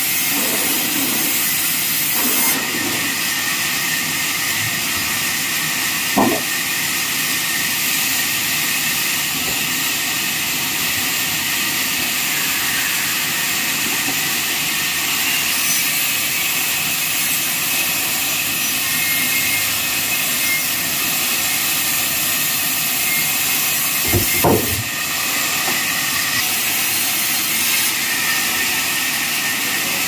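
Large vertical band sawmill running and cutting lengthwise through a log, a steady high hiss of the blade in the wood over the machine's drone. There are short knocks once about six seconds in and twice about three-quarters of the way through.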